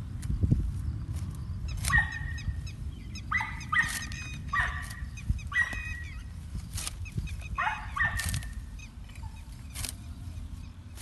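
An animal giving a run of about seven short, high calls, over a steady low rumble and a few sharp snaps from green fodder stalks being pulled and cut by hand.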